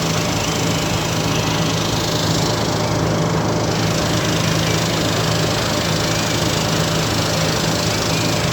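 An engine running steadily, a constant low hum under rough noise.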